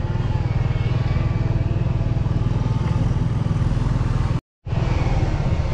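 An engine running steadily, a low even rumble. The sound cuts out completely for a split second about four and a half seconds in.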